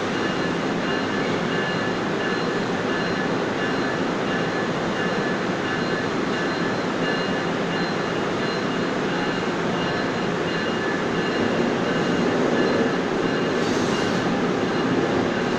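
Commuter train passenger cars rolling slowly past a platform in an underground station, a steady rumble of wheels on rail with a faint high whine over it.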